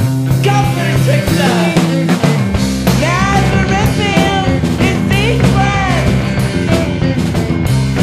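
Loud rock music: a full band with sustained bass notes and drums, and a bending, wavering melody line that comes in about three seconds in.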